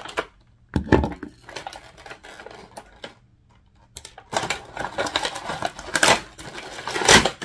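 Clear plastic bag packaging crinkling and rustling as it is handled and pulled open by hand, dense from about four seconds in. A short knock about a second in.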